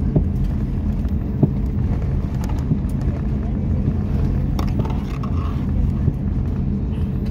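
Steady low hum and rumble inside the cabin of an Airbus A350-900 taxiing on the ground with its Rolls-Royce Trent XWB engines at idle, with a few light clicks.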